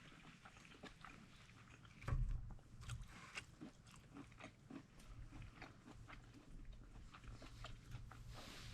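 A person eating close to the microphone, with faint chewing and crunching and many small scattered clicks. A heavier knock comes about two seconds in.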